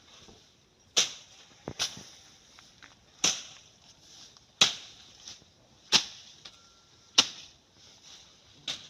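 A slasher blade swung into hedge and undergrowth, cutting with sharp swishing strikes about once every second and a half, seven in all.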